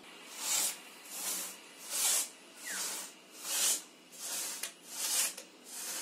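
Long two-man pit saw cutting through a large log by hand in even back-and-forth strokes, each stroke a rasping hiss, about eight strokes at a steady rate of a little more than one a second.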